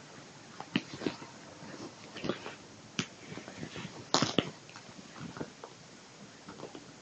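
Tabby kitten play-fighting with a person's sleeve: scattered fabric rustles and claw scratches, with a louder brief scuff about four seconds in.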